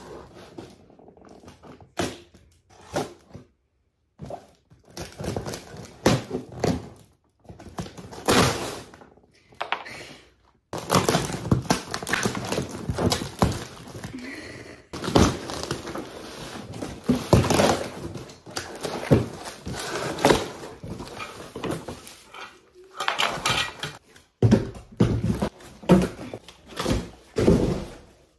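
A cardboard box being unpacked: a utility knife cuts along the box and its tape, cardboard flaps scrape and rustle, and pieces thunk as they are pulled out and set down. The sounds come in irregular bursts with short silent breaks.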